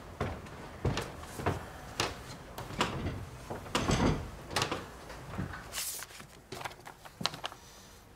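Footsteps on a hard floor and a string of irregular soft knocks and clunks as things are handled at a wooden desk, with a brief paper rustle about six seconds in.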